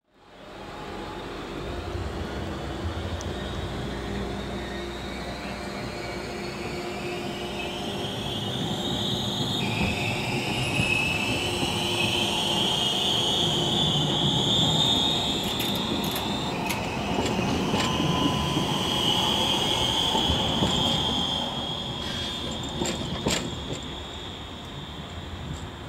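Tram running and gathering speed, with a high whine that climbs in pitch and jumps abruptly twice, over a steady rumble of wheels on rail. A few sharp clicks come near the end.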